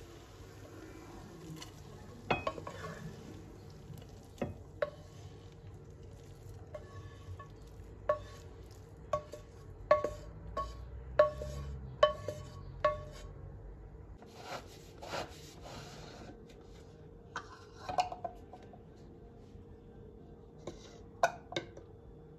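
Cooked leeks and carrots being scraped out of a frying pan into a glass baking bowl: a run of sharp knocks of a utensil against the pan and bowl, about one a second, each with a short ring, among softer scraping and scattered knocks.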